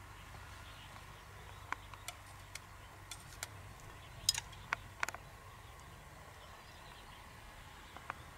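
Irregular light clicks and taps of small hard objects, about a dozen, the loudest cluster about halfway through, over a faint steady hum.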